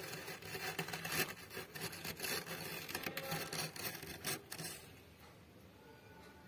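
Metal spoon scraping soft, dry freezer frost: a quick run of crunchy scratches that stops about five seconds in.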